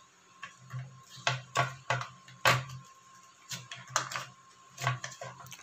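Ice cubes clinking in a glass mug: about nine sharp, separate clicks spread irregularly across a few seconds.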